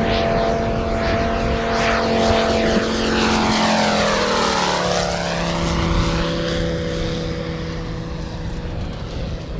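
Radial engine of a large-scale RC Grumman F4F Wildcat (Moki 250, scale three-blade prop) running at steady power on a low flyby. Its pitch drops as it passes, about four to five seconds in, then it fades a little as it moves away.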